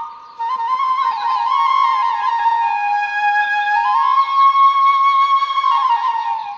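Background music: a flute playing a slow melody with sliding ornaments, after a brief break just after the start.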